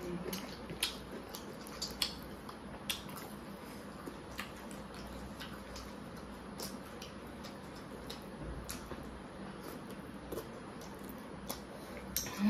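Quiet eating sounds: wet chewing and lip smacks, with scattered small irregular clicks as hands work rice and curry on the plates.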